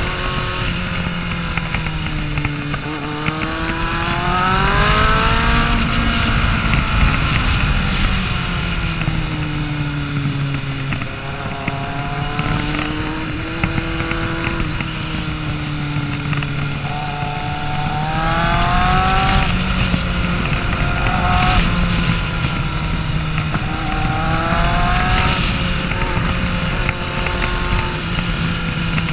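Kawasaki Z750 inline-four engine heard onboard while riding, its revs rising and falling through a series of bends and climbing sharply about four seconds in, again near twenty seconds, and once more later, over steady wind rush.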